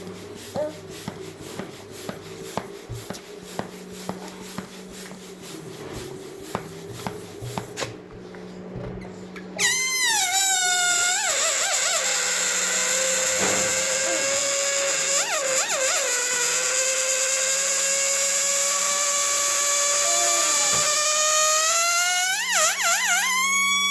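A rubber balloon being inflated, with a low hum and faint ticking, then about ten seconds in its air let out through the stretched neck as a loud, steady high-pitched squeal. The squeal drops in pitch at first, then slowly rises and warbles near the end as the balloon empties.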